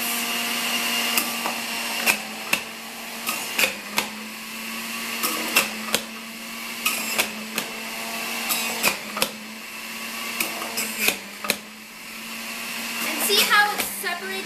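Centrifugal electric juicer running with a steady motor hum, with sharp knocks and clatters as apple chunks are dropped into the chute and hit the spinning cutter. The motor's pitch dips slightly near the end.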